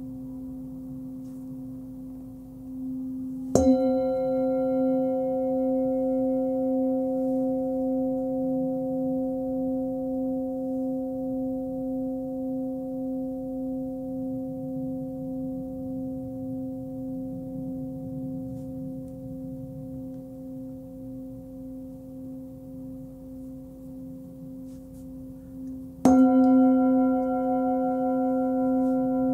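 A 16.4 cm Nepalese singing bowl tuned to about 260 Hz (C) is struck twice, about three and a half seconds in and again near the end. Each strike rings on for many seconds with a clear low tone and higher overtones, its loudness wavering in slow pulses as it fades.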